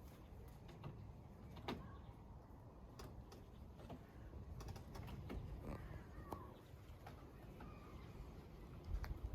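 Backyard chickens: faint scattered scratching and pecking clicks, with a few short soft clucks.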